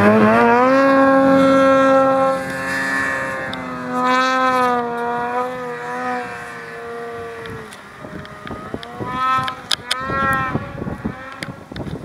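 Snowmobile engine running hard at high revs, then easing off and picking up again, with a few short throttle blips near the end. It fades as the sled moves away.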